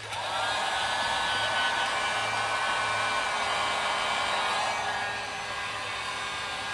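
Drill Master heat gun switched on with a click, its fan motor whining up to speed within the first second and then blowing steadily. It is shrinking heat-shrink tubing over a battery cable's crimped copper lug.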